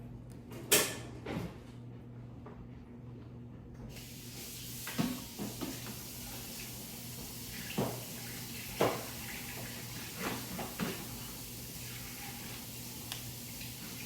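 Knocks and clatters of objects being handled, with a loud knock near the start; from about four seconds in, a steady hiss of water running from a tap.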